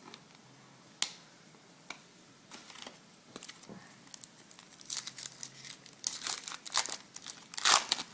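Foil trading-card pack wrapper being torn open and crinkled, a run of crackly rustles that grows loudest near the end, with a sharp click about a second in.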